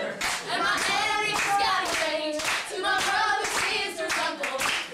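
Several women singing together without clear words, with hand claps in between.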